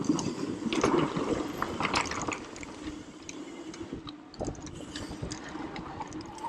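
Mountain bike riding down a dirt trail: tyre noise on the dirt with frequent clicks and rattles from the bike. It is louder in the first two seconds, then quieter.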